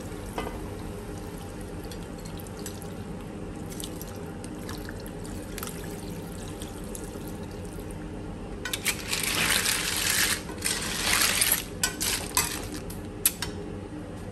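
Water poured into a metal karahi of water snails frying in spices, then the snails in their shells stirred through the liquid with a metal slotted spoon. From about nine seconds in there are a few seconds of louder scraping and sloshing.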